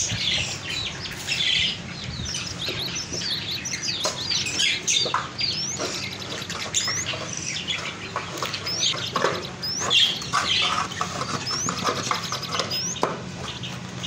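Many small caged birds chirping and calling together, with repeated short rising chirps about once a second through the middle. Underneath are the rustle of dry nesting grass being pulled from a wooden nest box and a few light knocks.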